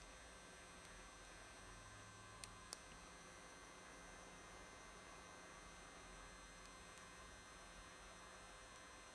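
Near silence with a faint steady electrical hum, and two faint clicks about two and a half seconds in.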